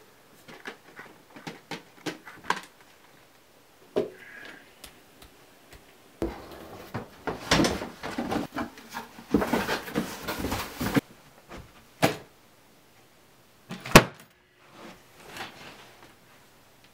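Boxes and a wooden case being rummaged through and handled. Scattered light clicks come first, then several seconds of rustling and clatter in the middle, then two sharp knocks near the end.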